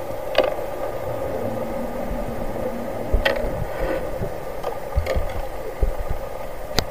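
Steady hum of a boat engine heard underwater, with a few sharp clicks, the loudest about half a second in, a little after three seconds, and near the end.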